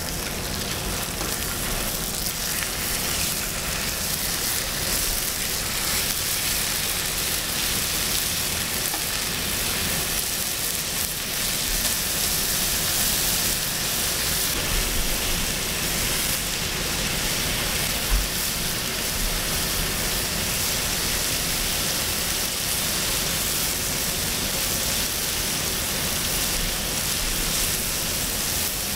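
Pork belly slices and aged kimchi sizzling steadily on a hot griddle plate, with a single brief low thump about two-thirds of the way through.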